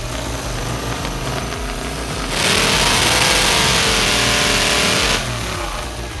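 Wood chipper engine running, with a loud stretch of chipping noise lasting about three seconds in the middle as material is fed through. The engine pitch dips under the load and then recovers.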